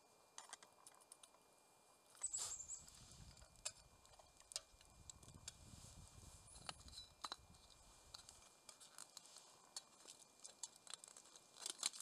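Faint campfire crackling: scattered small pops and ticks throughout, with a couple of brief high squeaks.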